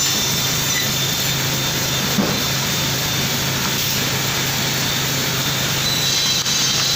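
Woodworking machinery on a door production line running steadily: an even, loud mechanical noise over a constant low hum.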